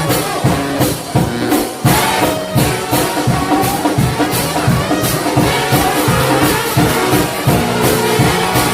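Shout band of massed trombones and other brass playing a driving gospel tune over drums, with a steady beat.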